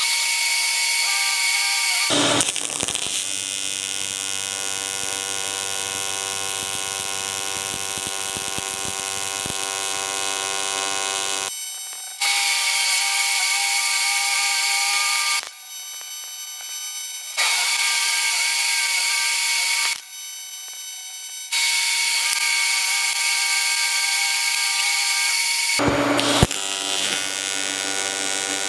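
AC TIG welding arc on aluminum from an HTP Invertig 221, buzzing steadily in long runs. It stops and starts again several times, with short crackles about two seconds in and again near the end.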